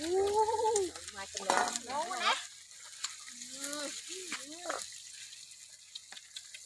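Food sizzling steadily in a frying pan as it is stirred with a spoon. Several short vocal calls sound over it: one at the start, one about a second and a half in, and more around four seconds in.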